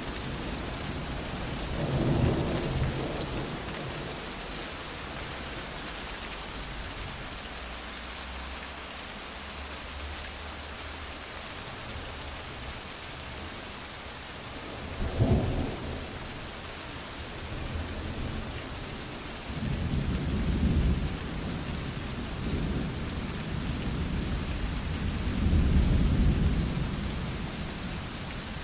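Steady rain falling through a thunderstorm, with thunder: a brief rumble near the start, a sharp clap about halfway, then long rumbles through the second half.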